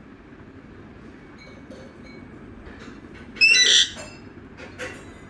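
Pet parrot giving one loud, harsh squawk about three and a half seconds in, lasting about half a second, with a few faint short chirps around it.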